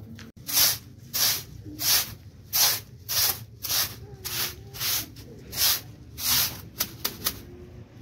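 Stiff straw broom sweeping a concrete floor: about a dozen short, brisk swishes in a steady rhythm, ending with three quick short strokes.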